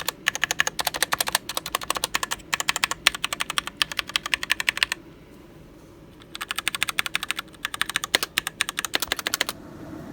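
SteelSeries Apex 7 mechanical gaming keyboard with its keys pressed in quick succession, giving a rapid run of clicks. The clicking stops for about a second midway, then starts again in a second run.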